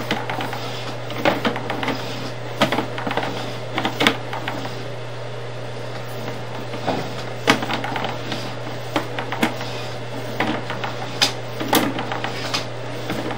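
Sewer inspection camera being pushed through a sewer pipe: irregular knocks, clicks and scrapes as the camera head and push rod move along the line, over a steady low electrical hum.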